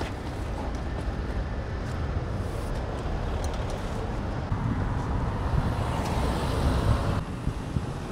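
Road traffic passing on a nearby road: a steady rumble of car engines and tyres that swells for a couple of seconds as a vehicle goes by, then drops off a little after seven seconds.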